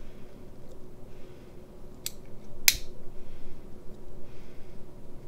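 Briar pipe being lit with a lighter: soft repeated puffs as the pipe is drawn, with sharp lighter clicks about two seconds in, the second one loudest, and another click at the end.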